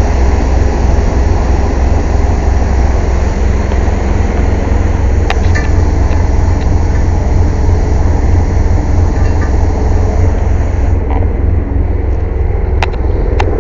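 Air compressor running loudly with a steady low drone. A higher hiss drops away about eleven seconds in, and a few sharp clicks of tools against metal sound through it.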